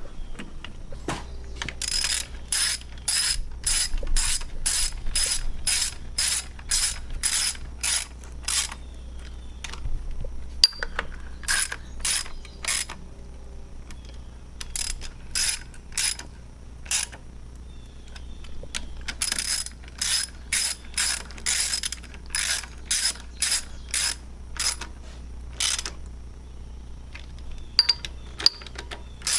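Hand ratchet wrench clicking as it runs in a bolt that has just been started, about two clicks a second, in several runs with short pauses between them.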